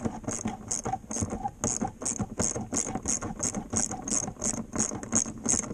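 Socket ratchet clicking in quick, even back-and-forth strokes, about three a second, as a 13 mm socket on an extension undoes a seat-mounting bolt.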